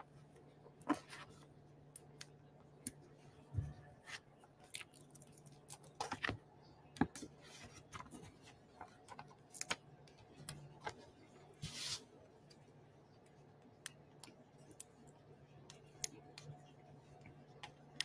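Faint scattered clicks, taps and paper rustles of cardstock being handled as small foam adhesive dots (Stampin' Up! Dimensionals) are peeled from their sheet and pressed onto it, with a short scratchy rustle about twelve seconds in.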